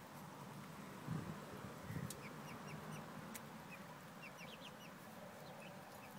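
Young chickens cheeping now and then, short high falling chirps, some in quick pairs. Two low muffled bumps about one and two seconds in are the loudest sounds.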